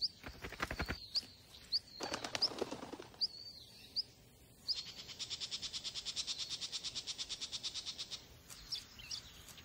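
Small bird chirping: a string of short, sharp, high chirps, then a fast, high-pitched trill of about ten pulses a second lasting some three seconds.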